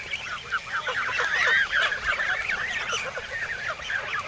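A flock of young geese, about two months old, calling all together: many short, high-pitched peeping calls that bend up and down and overlap without a break.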